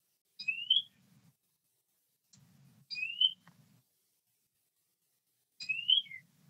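A bird calling three times, about two and a half seconds apart, each call a short rising whistle; the last call ends with a brief falling note.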